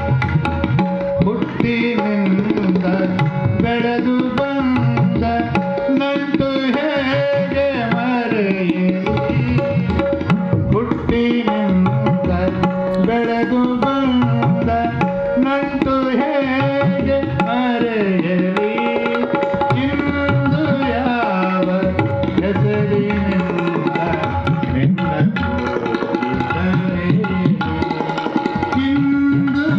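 Live Indian devotional music: tabla playing a steady rhythm under a harmonium and a male voice singing. The harmonium holds a steady note beneath a melody that bends and glides in pitch.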